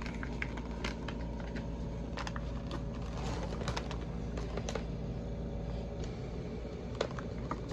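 Irregular light plastic clicks, taps and short scratches as a toy plastic sword is worked against packaging to cut it open.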